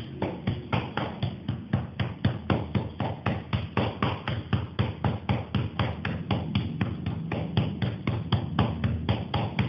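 Hand patting a child's back and shoulders in a steady rhythm of about four pats a second. It is done as a home remedy to ease the child's cough.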